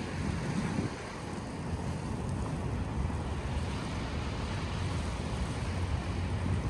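Storm wind buffeting the microphone: a steady low rumble with a hiss over it.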